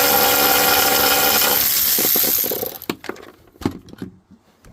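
A small electric motor, such as a power tool's, running steadily and then winding down about two and a half seconds in, followed by a few clicks and knocks of parts being handled.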